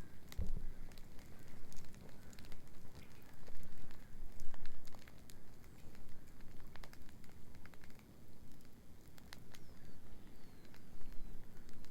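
Wood bonfire crackling, with sharp pops at irregular intervals over a low, steady rumble.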